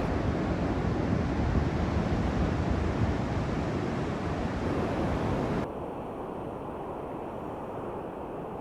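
Wind on the microphone over surf breaking on the shore, a steady noisy rush that drops abruptly to a quieter, duller level about two-thirds of the way through.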